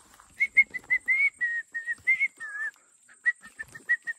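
Whistling: a quick run of short whistled notes at nearly one pitch, with a brief dip in pitch. It pauses about two and a half seconds in, then goes on with another run of short notes.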